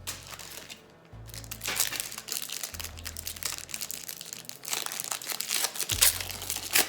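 Foil booster-pack wrapper crinkling as it is handled and opened, over background music with a low bass line.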